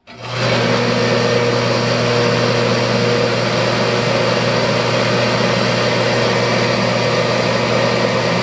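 A Remington 100 forced-air kerosene torpedo heater starts the moment it is plugged in. Its fan motor spins up within half a second and then runs steadily, a hum under a loud rush of air. The heater is priming its fuel pump after being taken apart dry, so it is slow to fire.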